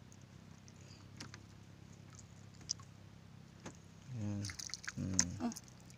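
Mostly quiet, with a few faint scattered clicks, then a low voice speaking indistinctly in two short spells during the last two seconds.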